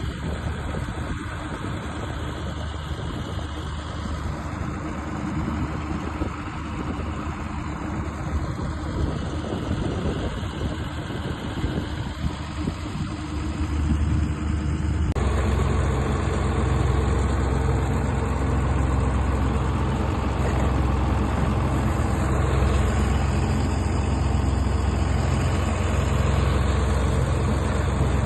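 Diesel farm tractor engine running steadily. About halfway through, the sound changes abruptly to a louder, deeper drone.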